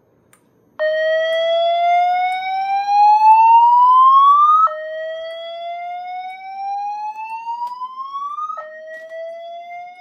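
Slow-whoop evacuation tone from a voice-evac message, played by a relay-triggered MP3 player board through a red wall-mounted fire alarm speaker-strobe. About a second in, a tone starts and rises in pitch over about four seconds, then drops back and rises again, three sweeps in all. It is the alert signal that calls for building evacuation.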